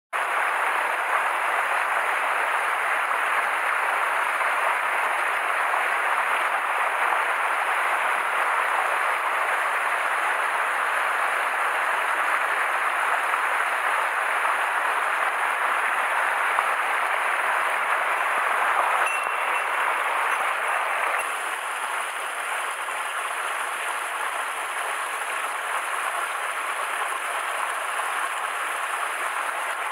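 Mountain stream running over rocks and boulders, a steady rush of water, a little softer from about two-thirds of the way in.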